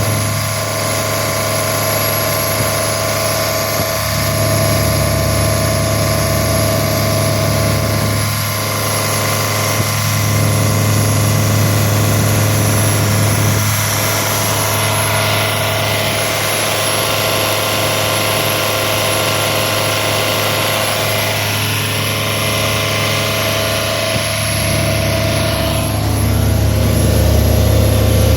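65 hp Yanmar marine diesel engine running steadily with an even drone, getting a little louder near the end.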